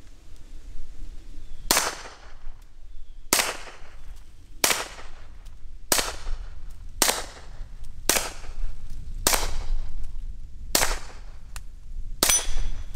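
Walther PPK/S .22 LR pistol firing nine shots of CCI Mini Mag Varmint 36-grain hollow points, one roughly every second and a half.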